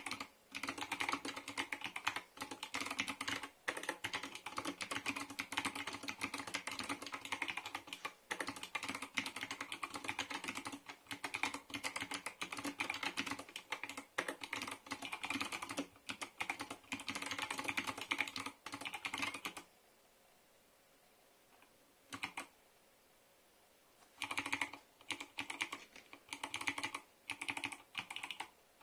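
Typing on a mechanical keyboard with clicky Kailh Box Navy switches and PBT keycaps in a plastic 60% case: fast, continuous clicking for about twenty seconds. It then stops for about four seconds, with one lone keystroke, and resumes as short bursts of a few keys at a time.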